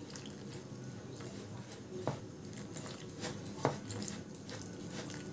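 Hand mixing and squeezing a dry mix of milk powder, sugar and grated coconut in a bowl as milk is added little by little: faint soft squishing and rubbing, with a few light clicks.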